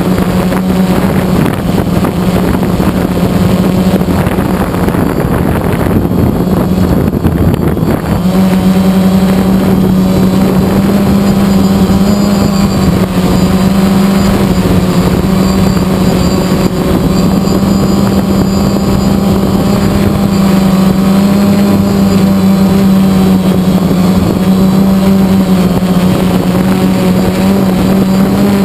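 Motors and propellers of a small RC aircraft heard from the camera it carries: a loud, steady buzz that settles to one even pitch about eight seconds in as the aircraft flies.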